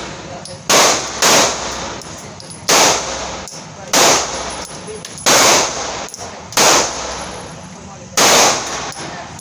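Pistol shots fired one at a time, seven in all, spaced unevenly about a second or so apart, each followed by a short ringing echo.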